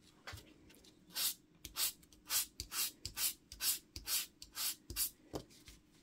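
Fine fairy-light wire ends being sanded with a small sanding block: short scratchy back-and-forth strokes, about two to three a second, starting about a second in and stopping near the end. The sanding follows burning the ends so that the wires will make contact.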